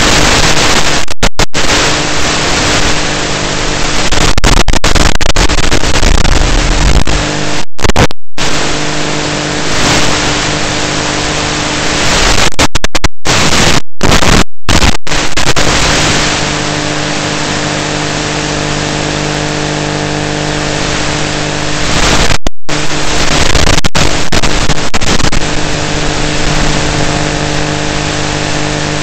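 Loud static hiss from an analog FPV video receiver's audio channel, with a steady low hum under it. The sound cuts out completely several times for a moment, as the radio link drops.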